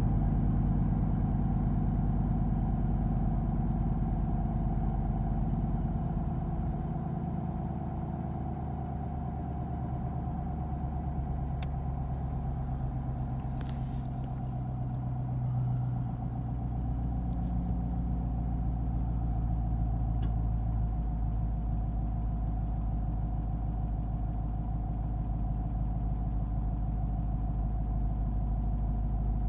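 Sixth-generation Camaro 2SS's 6.2-litre V8 idling steadily after a cold start, in the cold-engine state in which it has a cylinder 1 misfire. The note eases off for several seconds in the middle, then comes back up, with a few faint ticks.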